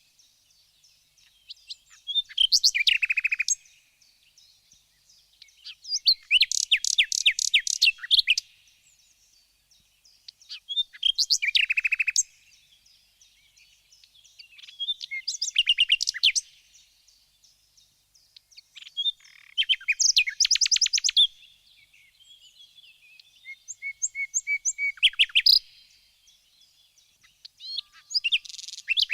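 Birds singing: about six bursts of rapid, chirping notes, each a second or two long and falling in pitch, coming every four to five seconds with quiet gaps between.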